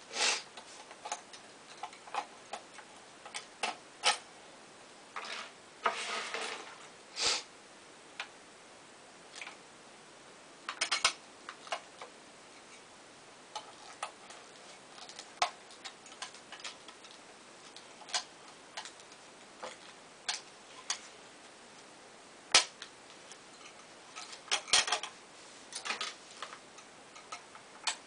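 Irregular sharp clicks and snaps of small objects being handled, some loud, with a short rustle about six seconds in and a quick cluster of clicks near the end.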